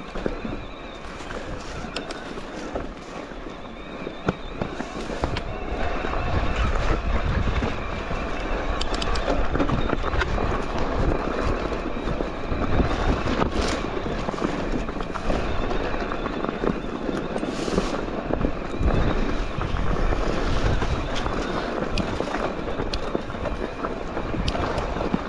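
Electric mountain bike climbing over loose stone: tyres crunching and crackling on rocks and the bike rattling, with many scattered sharp clicks. A low rumble underneath grows louder from about six seconds in.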